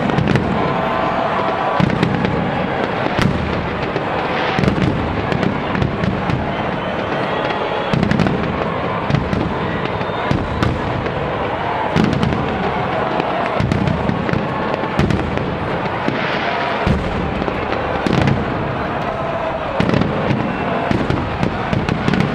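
Fireworks display: aerial shells bursting in quick succession, with deep booms every second or two and sharp crackling between them.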